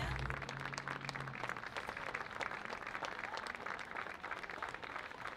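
Crowd applauding steadily, many hands clapping at once, while the last low note of the music fades out over the first second or so.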